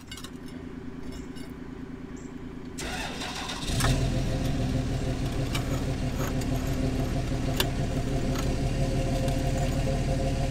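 Tractor engine running steadily, getting clearly louder about three to four seconds in.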